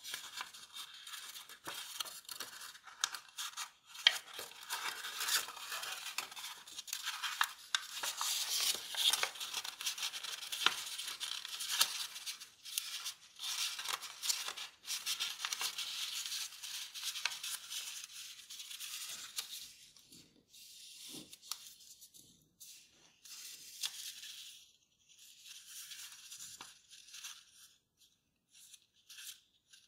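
A square of kraft paper rustling and crinkling as it is folded and creased by hand, with many small crisp snaps as folds are pressed flat. The handling is busy and louder for the first two-thirds, then quieter and sparser.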